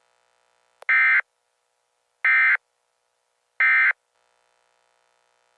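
Emergency Alert System end-of-message data burst: three short, shrill digital squawks about a second apart, the coded signal that closes an emergency alert.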